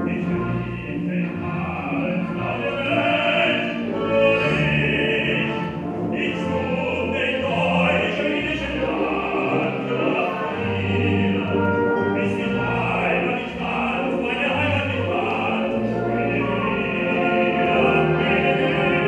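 Operetta performance: a man singing in full operatic voice over orchestra accompaniment.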